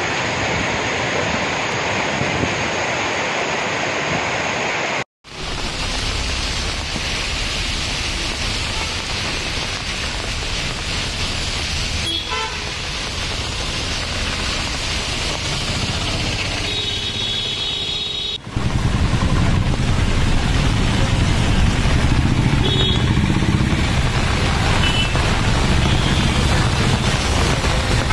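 For the first five seconds, floodwater rushes across a road as a scooter wades through it. Then heavy rain pours on a waterlogged city street with cars and auto-rickshaws passing, horns tooting now and then. From about 18 seconds in, the engine and tyre noise through the water is louder.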